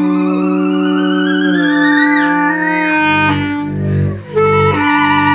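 Improvised duet of bass clarinet and theremin. The bass clarinet holds steady low notes while the theremin glides upward with a wide vibrato and then drops away just after two seconds in. From about three seconds in, low notes pulse several times a second.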